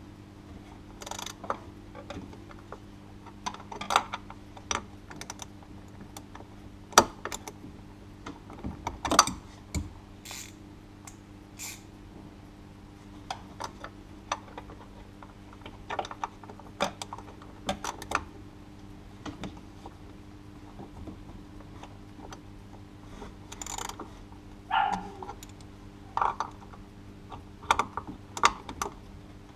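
Hand ratchet and socket clicking and metal tools clinking in irregular short bursts while a bolt is worked at the serpentine belt tensioner, over a steady low hum.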